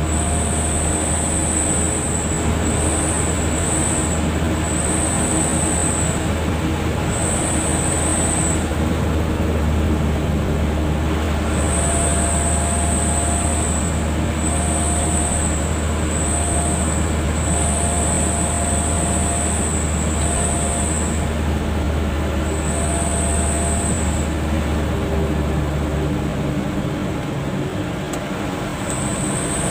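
Road and engine noise inside a moving car's cabin: a steady rumble with a low drone that drops away near the end. A high buzz comes and goes every second or two.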